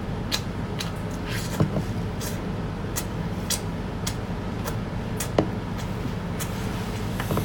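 Close-up eating sounds: sharp, irregular crackles and clicks of food being chewed, over a steady low hum.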